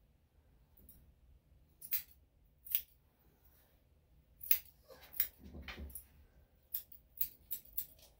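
Grooming scissors snipping through a dog's leg fur, about ten short, sharp cuts at an irregular pace that come quicker near the end.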